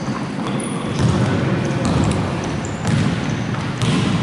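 Basketball being dribbled on a hardwood gym floor as players run up the court, with footsteps and a few short, high sneaker squeaks.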